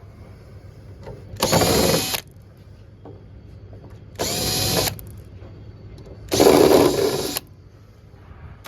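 Power drill-driver spinning out screws from a combi boiler's casing in three short runs, each about a second long. The motor's whine rises in pitch as each run starts.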